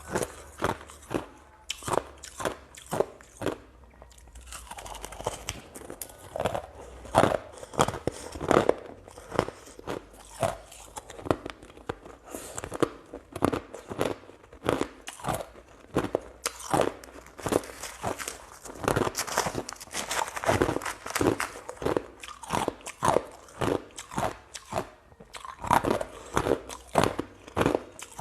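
Repeated crisp crunching, a few crunches a second in an irregular rhythm.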